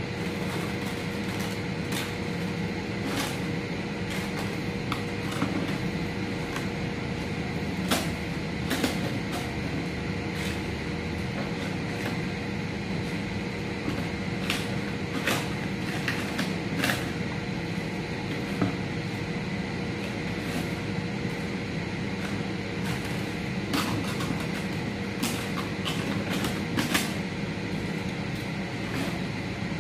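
Crisp fried kerupuk crackers crackling and clicking irregularly as they are handled and dropped into a glass jar, over a steady low hum.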